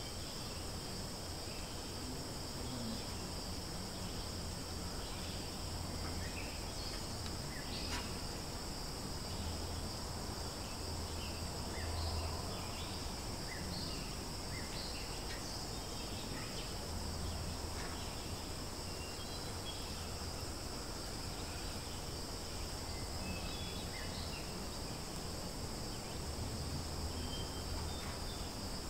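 Insects droning steadily at a high pitch, with scattered short bird chirps and a low rumble underneath.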